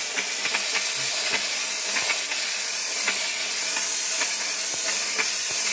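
BLACK+DECKER steam mop's grout-cleaning nozzle jetting steam into a tile grout line: a steady hiss with irregular small pops and spits of water.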